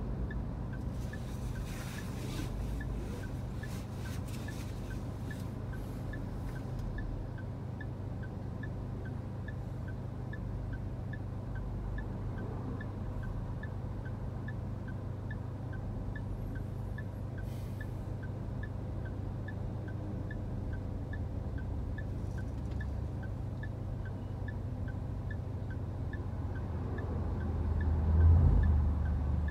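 Inside a car stopped in city traffic: the engine's low idling hum with a steady, regular light ticking. Passing traffic swishes by, and a louder low rumble swells near the end.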